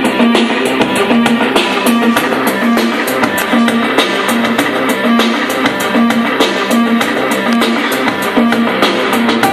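Recorded music with a steady beat playing loudly through the iDance Energy XD2 speaker system, a track played from a USB stick.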